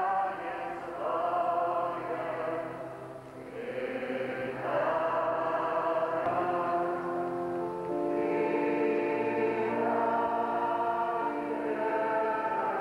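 Many voices singing a slow hymn together, with long held notes in the second half.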